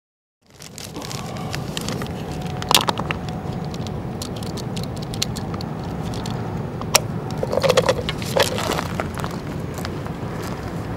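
After half a second of silence, scattered clicks and rustles of fishing tackle and bait being handled, over a steady low outdoor rumble.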